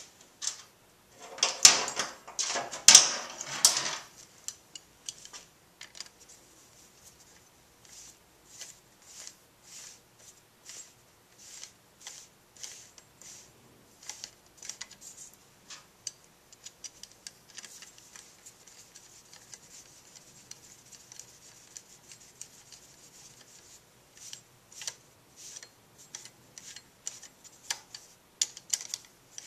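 Hand ratchet clicking in short runs as the oil filter cover bolts on a Kawasaki KLR650 engine are turned in with a socket extension. A louder clatter of metal tools comes in the first few seconds.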